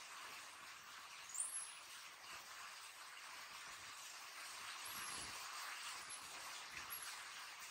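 Baby monkey giving a short, very high-pitched squeal about one and a half seconds in, then fainter squeaks near the end, over a steady background hiss.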